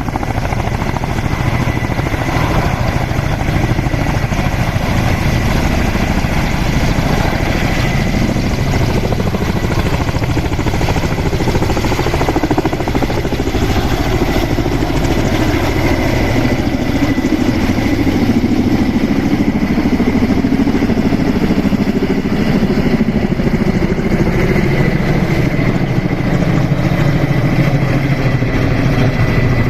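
Helicopter running steadily: a dense, fast rotor beat under a steady high whine.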